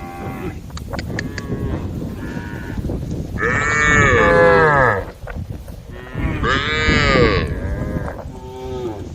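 Cows mooing to each other, several calls overlapping, with two long loud moos about three and a half and six and a half seconds in and quieter moos around them.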